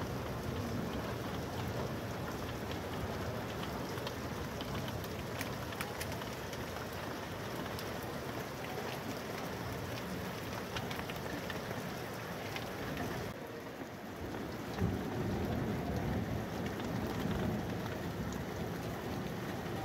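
Steady downpour of rain and hail, with scattered sharp taps of drops and stones. About thirteen seconds in the sound dips briefly, then comes back louder and lower, a rumbling noise with a single sharp knock.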